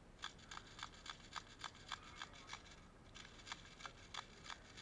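Sharp clicks repeating evenly at about three to four a second, in two runs with a short pause around the middle.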